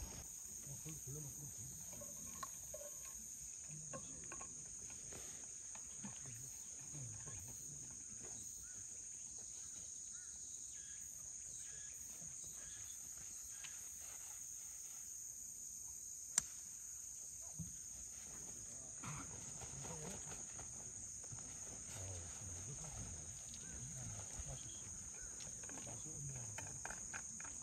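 Steady high-pitched chirring of insects, with faint distant voices murmuring underneath and one sharp click about sixteen seconds in.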